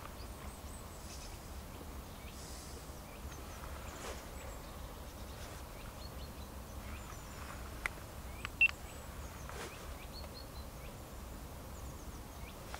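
Quiet outdoor ambience: a steady low rumble with scattered faint high bird chirps, and two short sharp sounds about eight seconds in, the second the loudest.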